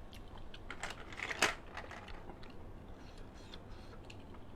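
Scattered sharp clicks of blood cockle shells being handled, with the loudest click about a second and a half in.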